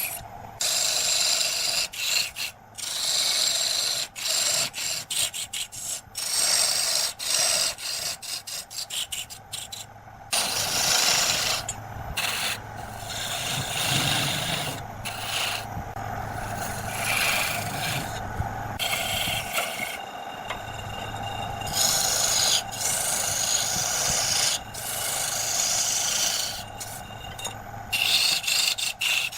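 Turning tool cutting and scraping wood spinning on a lathe, a rasping hiss that breaks off and resumes many times as the tool leaves and meets the work. From about ten seconds in, a steady low hum from the lathe runs underneath.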